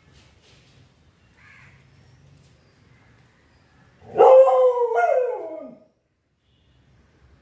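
Indian pariah dog giving one loud whining, howl-like yelp about four seconds in, lasting about two seconds with a catch in the middle and dropping in pitch at the end. It is the dog's excitement at a trapped rat held up out of its reach.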